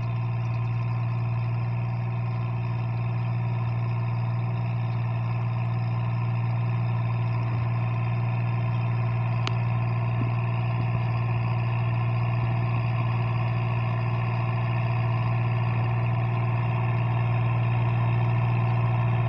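Farm tractor's diesel engine running steadily while ploughing, a constant low hum that grows slightly louder as the tractor comes closer.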